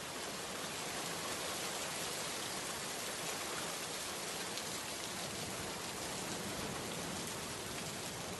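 Steady rain falling, an even hiss of many drops, tapering off at the very end.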